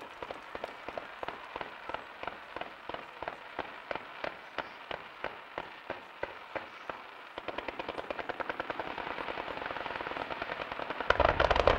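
Fireworks display firing volleys of ground-launched comets: a string of sharp pops about four a second, quickening into a fast, dense rattle about two-thirds of the way in. Heavier, louder bangs come near the end.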